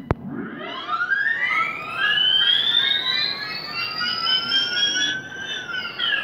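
Siren-like sound effect from a performance backing track: a sharp click, then several tones that rise slowly together in pitch for about five seconds, level off, and sweep down fast near the end.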